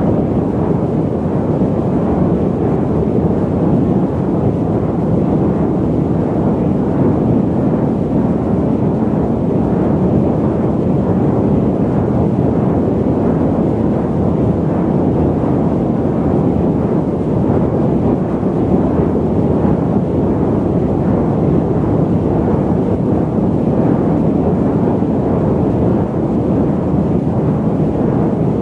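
Airliner cabin noise in flight: a steady, low rushing drone that stays even throughout, with most of its weight in the low and middle range and little hiss on top.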